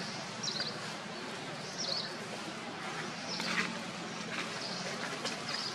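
Four short, high chirping calls about a second or so apart, the third one longer and reaching lower, over a steady outdoor background hiss.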